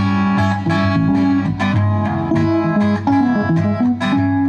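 Guitar music: a plucked guitar playing a melody, one note after another.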